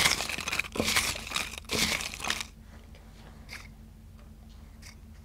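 Paper crinkling and rustling as a hand rummages among folded slips in a small bowl, for about two and a half seconds, followed by a few faint light clicks.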